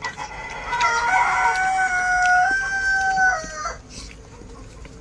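A rooster crowing once: one long call of about three seconds starting about a second in, stepping slightly higher in pitch partway through.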